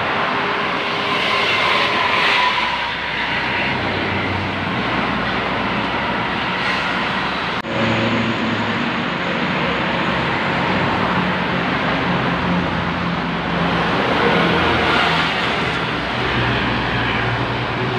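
Motorway traffic passing at speed: a steady rush of tyre and engine noise from cars, buses and lorries. In the second half a heavy diesel vehicle adds a steady low engine hum.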